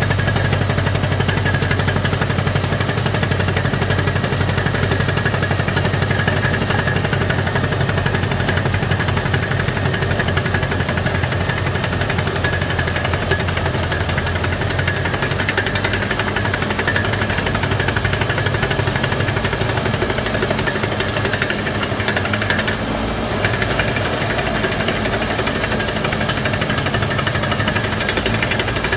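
Truck-mounted hydraulic guardrail drilling machine running, its drill hammering rapidly and steadily over the hum of its power unit, easing briefly about 23 seconds in.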